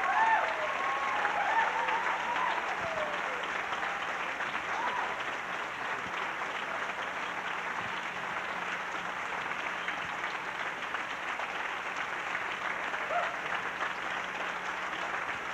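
Audience applauding steadily, with a few voices calling out in the first seconds and briefly again near the end.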